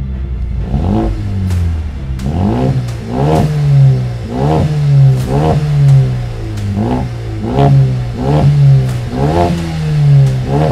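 Mercedes-AMG A 35's turbocharged 2.0-litre four-cylinder revved in quick repeated throttle blips, about three every two seconds. Each blip rises in pitch and drops back, heard through a 3-inch stainless Cobra Sport Venom rear-box-delete exhaust.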